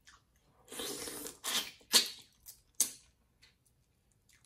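Close-up mouth sounds of eating snow crab meat with sauce: a drawn-out slurp about a second in, then a few short wet smacks.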